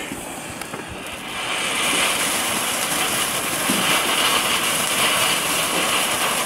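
A "Sparkle" firework fountain from a cheap selection box burning, spraying sparks with a steady hiss that builds up over the first couple of seconds.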